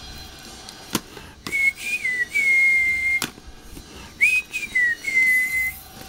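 A person whistling two short phrases, each mostly held on one high note after a quick bend up and down at its start. Two sharp clicks come in between, one before the first phrase and one right after it.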